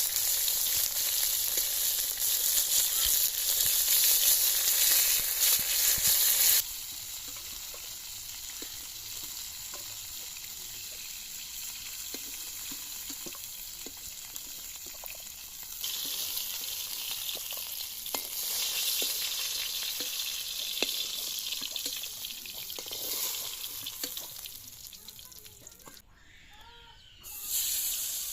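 Food frying in hot oil, a steady sizzle with small taps and scrapes of stirring. The sizzle is loud for about the first six seconds, drops suddenly to a softer frying, swells again later, and nearly stops for a moment near the end.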